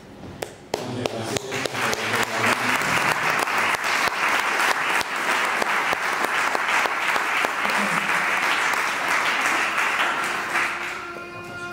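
Audience applauding: claps start about a second in, build into steady applause, and fade away near the end.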